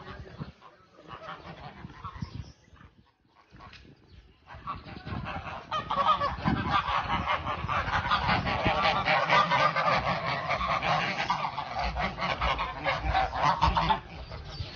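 A flock of domestic geese honking, scattered and quieter at first, then a dense, continuous chorus of rapid honks from about six seconds in that falls away sharply near the end.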